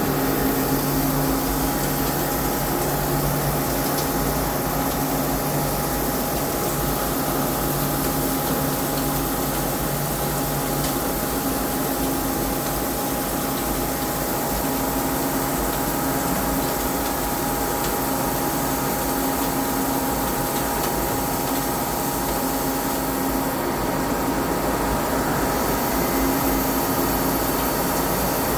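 CNC lathe running steadily, a constant machine hum with several steady tones; the lowest tone drops out about eleven seconds in.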